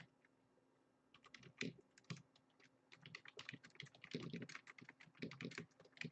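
Quiet, rapid, irregular clicking of computer keyboard keys being typed, in short runs from about a second in.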